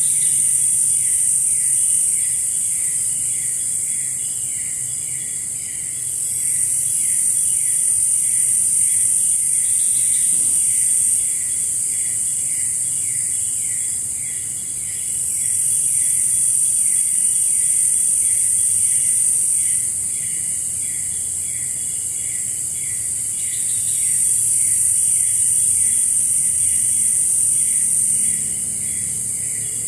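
Rainforest insects calling: a shrill, high drone that swells and fades in long waves, over a steady, rapid chirping pulse.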